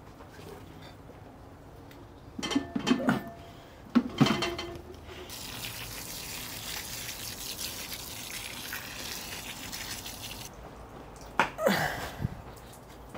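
Garden hose spray nozzle spraying water onto potting mix in a planter box, an even hiss lasting about five seconds. Before it come a few loud knocks and clunks of handling, and after it another clatter.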